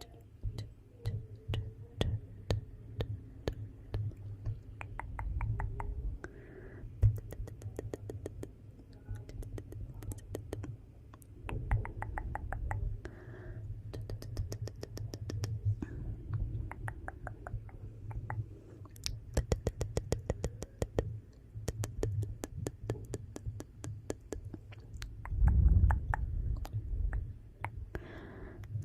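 Fireplace fire crackling, with irregular runs of sharp snaps and pops over a low rumble of the flames; a louder low surge comes near the end.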